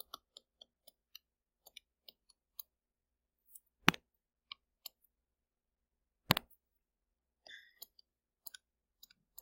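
Stylus tip ticking and tapping on a tablet screen during handwriting: a scattering of small irregular clicks, with two louder sharp knocks about four and six seconds in.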